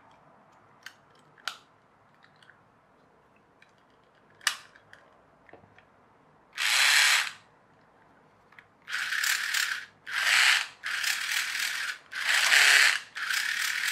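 Geared drive of a TOMY wire-controlled toy bird plane, run in short bursts from its wired remote, with the slipping clutch ratcheting: a sign that the clutch slips too easily, in the owner's view. Light plastic clicks of handling come first, then one burst about halfway through and a quick run of five bursts near the end.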